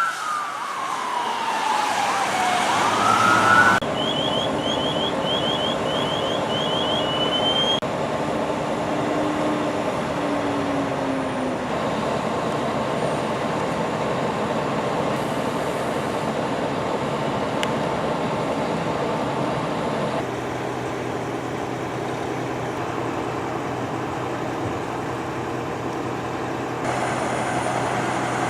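Emergency vehicle siren wailing, its pitch sweeping down and then starting back up before cutting off. It is followed by a run of quick rising chirps and then the steady running of heavy vehicle engines for the rest of the time.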